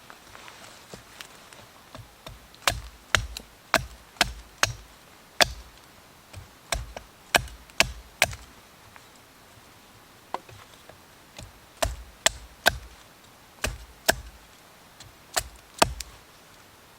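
Chopping: a blade striking wood in two runs of sharp, quick strikes about two a second, with a short pause between the runs.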